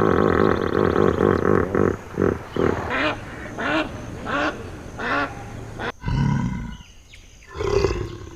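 Animal calls: a dense pitched calling for about two seconds, then short calls repeated about every 0.7 s. About six seconds in it cuts abruptly to a lower, rougher animal sound, with one more loud call near the end.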